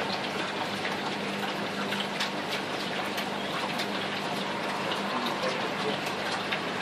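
Water splashing and trickling steadily into aquarium tanks from the filter returns, with many small drips over it and a low steady hum underneath.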